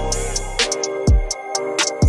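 Intro music with a steady drum beat, hi-hat strokes and held chords.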